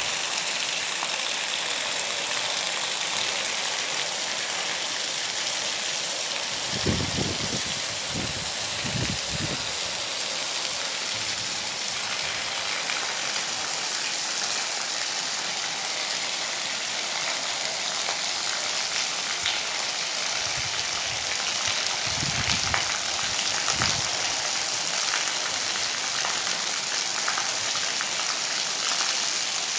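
Heavy rain falling steadily on a flooded, puddled yard, a continuous even hiss. A few short, dull low thumps come about seven to ten seconds in and again around twenty-two to twenty-four seconds.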